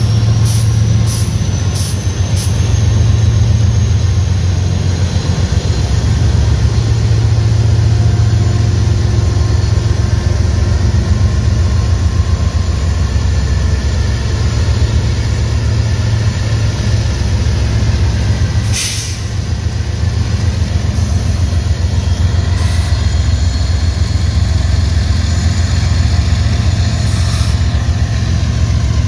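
Diesel freight locomotives running with a loud, steady, heavy low rumble, and a brief hiss about 19 seconds in.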